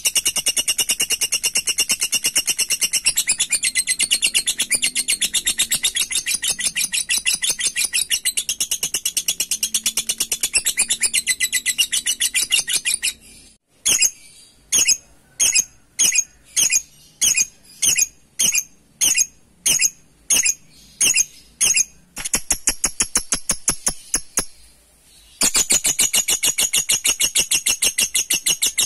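Lovebird ngekek: a long, rapid, high-pitched chattering trill with no breaks for about the first half. After a short pause come separate short chirps about two a second. Then the rapid chattering starts again near the end, broken once by a brief gap.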